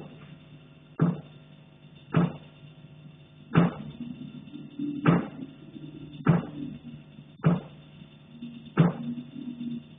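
Repeated knocking in the attic, about eight dull knocks at a slow, fairly even pace of roughly one every second and a quarter, over a steady low hum.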